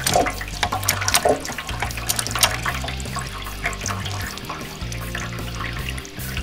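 Wet sawdust-and-paper pulp being squeezed in a steel cylinder by a hydraulic bottle jack: water crackles and squelches out of the compressed mix, most densely in the first couple of seconds. A low background music line runs underneath.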